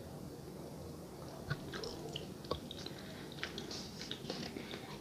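Close-miked mouth sounds of drinking and eating: swallows of juice, then chewing with many small wet clicks and smacks, and two sharper clicks near the middle.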